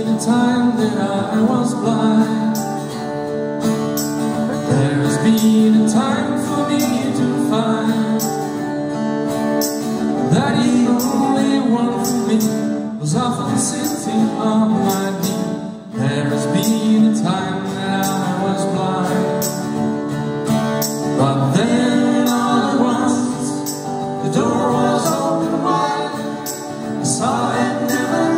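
A live pop band playing a ballad, with several voices singing together over accordion, acoustic guitar and drums.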